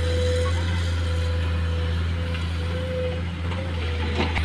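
Komatsu PC210 hydraulic excavator working, its diesel engine running steadily under load with a low hum and a steady higher whine. A short knock near the end as the bucket tips rock into the dump truck's steel bed.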